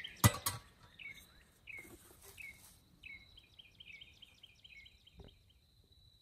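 A sharp metal clank just after the start as the lid of an aluminum-flashing camp oven is set back on. Then a songbird calls: a few single chirps, then a quick run of repeated chirps from about three seconds in, over a faint steady high insect whine.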